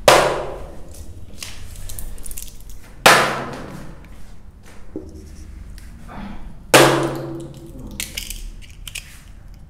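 Whiteboard marker being swapped: three sharp knocks about three seconds apart, each ringing out briefly in the room, with fainter plastic clicks and handling noise in between.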